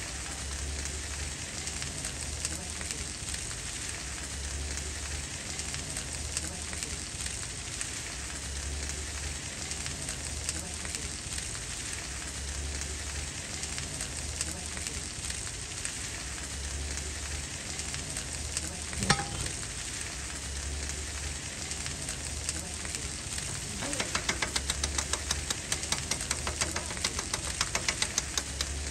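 Chicken sizzling on a flat-top griddle, with a single metal clank about two-thirds of the way through. Near the end come rapid chopping strikes of a steel blade against the griddle, about four or five a second.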